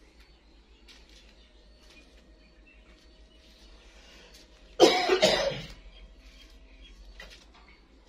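Plum-headed parakeet letting out a harsh, cough-like call in two quick parts about five seconds in, lasting about a second, with faint scattered clicks before and after.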